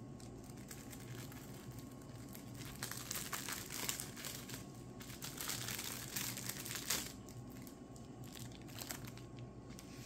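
Plastic packaging crinkling and rustling in the hands in irregular spurts, busiest in the middle, as a wig cap is taken out of its packet.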